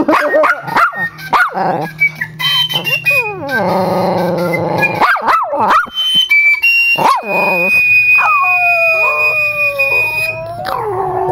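A dog howling and yipping along to high flute notes, its howls sliding up and down in pitch. A long steady high note is held in the second half while the dog keeps howling under it.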